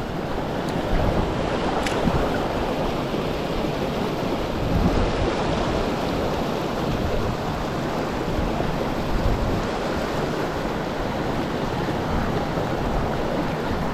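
Rushing water of a mountain stream: a steady, even noise with no breaks.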